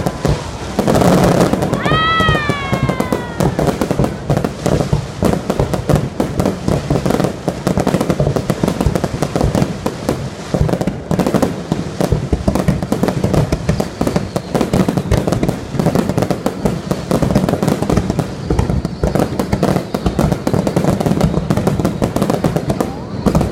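Aerial fireworks display: a dense, continuous string of shell bursts, bangs and crackling. A falling whistle sounds about two seconds in.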